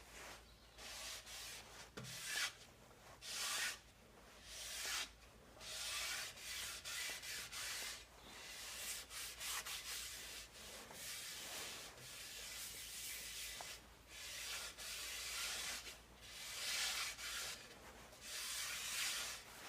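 Finishing oil being rubbed by hand into the surface of a sweet chestnut bowl, in repeated hissing strokes with short pauses between.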